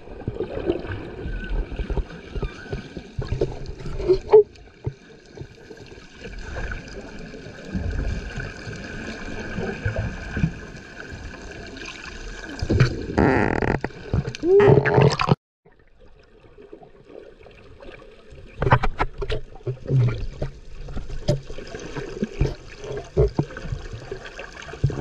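Muffled underwater sound from a camera in the sea: gurgling water and bubbles with irregular low thumps from swimmers' movement. A louder bubbling rush builds about 13 seconds in and cuts off suddenly about two seconds later.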